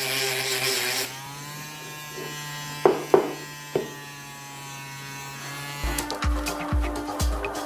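Small 6 V DC motor of a homemade mini drill running with a whine: noisier for about the first second, as if bearing on work, then spinning freely with a steady, slightly higher whine and a few sharp clicks. Background music with a steady beat comes in near the end.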